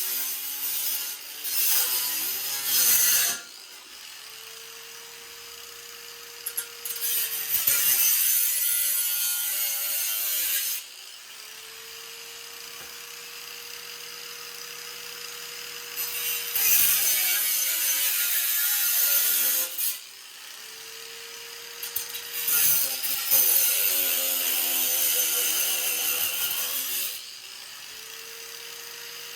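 Power saw cutting titanium exhaust tubing: the motor hums steadily between cuts, and there are four loud, harsh stretches of cutting a few seconds each, the pitch sagging as the blade bites.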